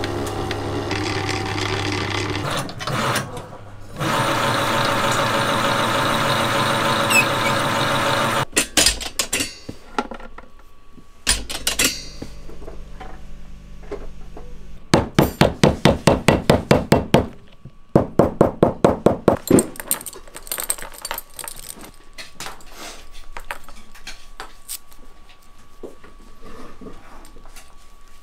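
A bench leather-working machine runs with a steady loud drone while a leather belt strip is fed past its grooved steel roller, and cuts off about eight seconds in. Later come scattered clicks and two runs of rapid mechanical strokes, about six a second for a couple of seconds each, then quiet handling of small leather pieces.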